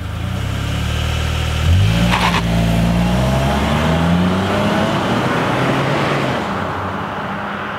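Car engine revving and accelerating, its note rising as it gathers speed, with a brief sharp crackle about two seconds in. The sound fades away near the end.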